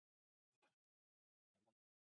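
Near silence, with two very faint, brief noises about half a second and a second and a half in.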